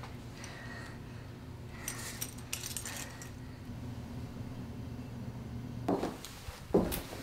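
A steady low hum with a few faint clinks and rustles, then two louder brief rustling sounds near the end.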